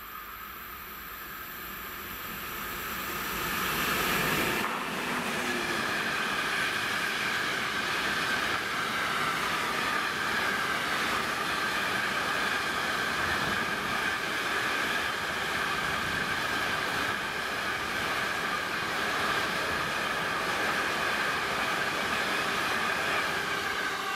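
A freight train of open high-sided wagons hauled by a class 248 locomotive passing close by. It builds as the locomotive approaches and goes by about four seconds in, then a steady, loud rush of wheels on rail with a faint ringing tone as the wagons roll past.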